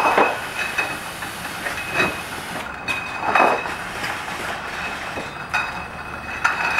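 Mobile beer bottling line running: a steady high whine and hiss with sharp clanks of machinery and glass bottles every second or so.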